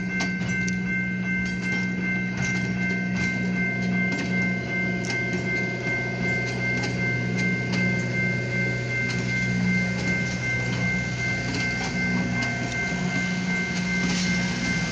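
Passenger train cars rolling past, their wheels clicking over the rail joints, under a steady high ringing tone and a low hum.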